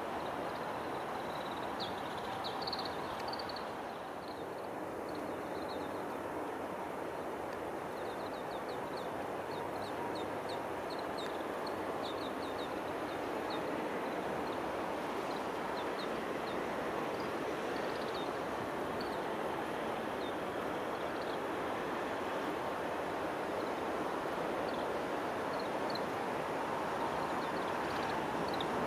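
A flock of Oriental greenfinches calling with many short, high chirps scattered throughout, over a steady rushing background noise.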